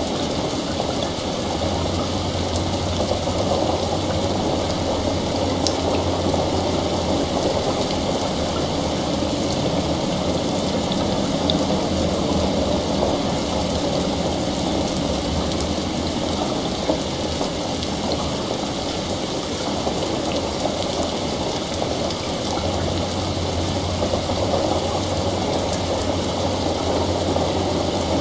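Steady heavy rain. A low, even rumble comes in during the first seconds, fades out, and returns near the end.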